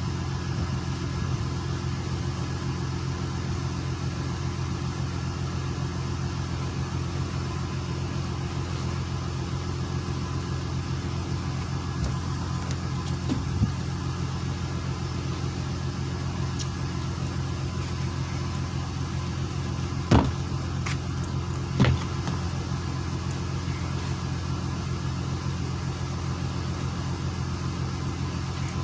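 A fishing boat's engine running steadily, a low even drone. Two sharp knocks about two-thirds of the way through stand out above it.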